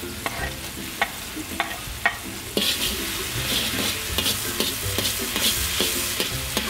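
Fish sauce and sugar sauce bubbling in a steel wok, with a few light clicks. About two and a half seconds in, minced red chili goes into the hot sauce and the sizzling turns louder and crackly.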